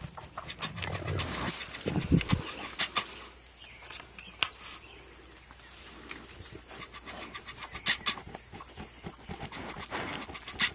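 Saanen goat kids nursing at close range: small sucking and smacking noises, breathing, and straw rustling as they shift.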